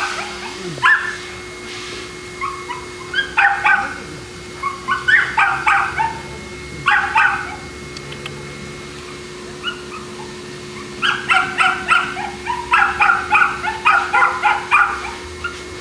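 Boston Terrier yapping in quick runs of short, high-pitched barks and yips, with a pause of a few seconds midway and the busiest burst in the last third.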